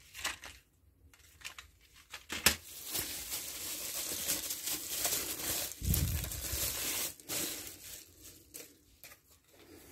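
Plastic bubble wrap crinkling and rustling as it is handled and pulled off a tool, with a sharp snap about two and a half seconds in.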